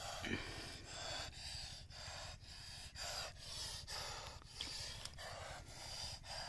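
A person panting quickly and evenly, about two breaths a second, close to the microphone during hard work.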